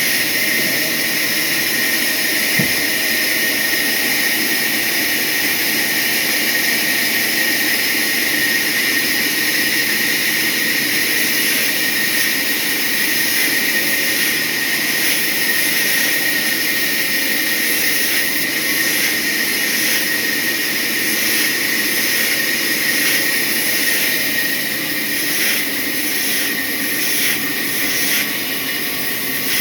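Sawmill saw cutting a hardwood log: a steady, loud whir of blade and machinery with a continuous high whine.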